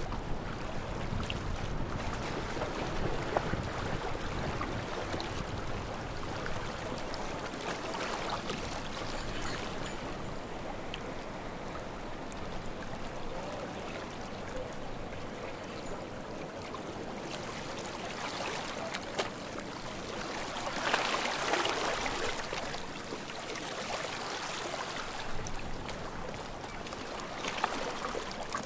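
Small sea waves lapping and washing at the shore, with one wash swelling louder about three quarters of the way through.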